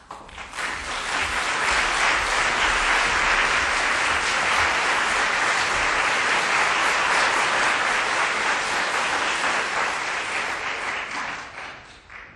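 Audience applauding, swelling within the first two seconds and dying away shortly before the end.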